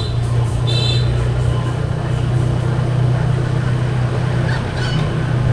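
Steady low drone of a vehicle running along, with road and rushing air noise, and a brief high-pitched tone about a second in.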